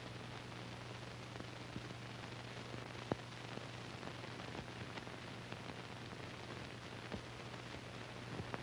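Background noise of an old film's soundtrack: a steady hiss and low hum with scattered crackles and pops, one louder pop about three seconds in.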